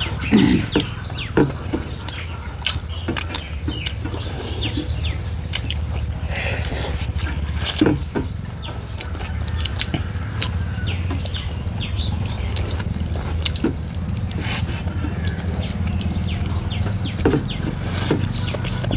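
Mukbang eating sounds: chewing and irregular small clicks and smacks, over a steady low rumble.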